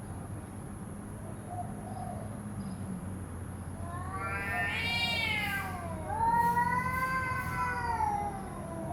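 A cat giving two long, drawn-out meows: the first rises and then falls in pitch, the second is longer and arches more slowly.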